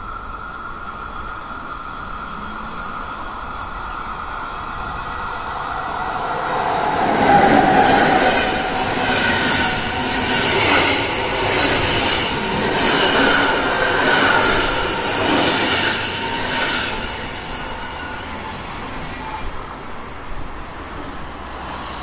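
Swiss Federal Railways (SBB) locomotive-hauled passenger train passing close by. It grows loud about seven seconds in as the locomotive goes past, then comes in a run of swells with high steady tones as the coaches roll by, and fades after about seventeen seconds.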